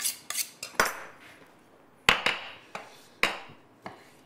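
Kitchen knife chopping cherry tomatoes on a wooden chopping board: a few quick knocks of the blade on the board, then after a short pause slower, irregular single chops.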